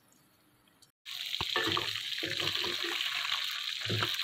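Near silence for about a second, then chicken pieces frying in hot oil in a metal karahi start suddenly. There is a steady loud sizzle, with a spatula scraping and stirring them against the pan now and then.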